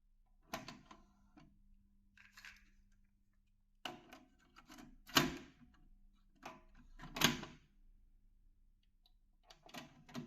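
Grundig FineArts CF21 cassette deck being operated: a string of separate mechanical clicks and clunks from its controls and tape mechanism, the loudest about five and seven seconds in, over a faint steady hum.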